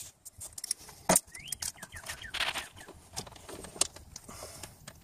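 Irregular metallic clicks and clinks of a socket, bolt and hardware being worked by hand while a replacement starter motor is bolted onto a 1MZ-FE V6, with one sharp click about a second in. A bird chirps a few times in the background.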